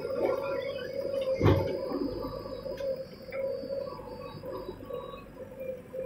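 JCB 3DX backhoe loader's diesel engine running with a steady drone while the backhoe works, with a thin high whine over the first half. About one and a half seconds in comes a single heavy thump as the bucket's load of earth drops into the tractor trolley.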